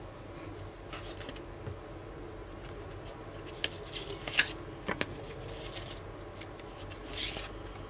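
Paper cards being handled and shuffled: scattered rustles with a few sharp clicks around the middle, over a steady low hum.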